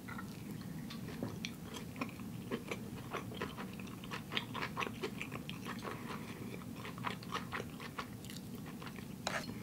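A person chewing a mouthful of vegan sushi close to the microphone: a steady run of small mouth clicks and smacks. A short hiss near the end.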